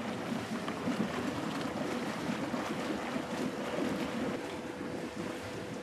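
Steady outdoor wash of wind and water noise, with a faint steady hum underneath.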